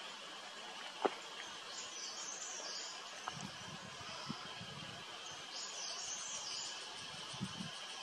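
Cicadas calling in a steady, continuous drone, with two higher-pitched rasping bursts about two and six seconds in. A single sharp click about a second in is the loudest sound.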